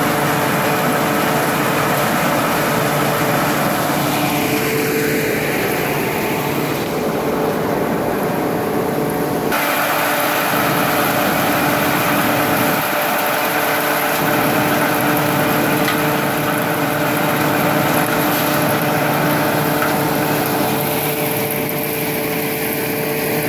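Engine-driven threshing machine running steadily as it threshes Job's tears, a continuous engine drone with a steady hum from the machine; the sound changes abruptly about ten seconds in.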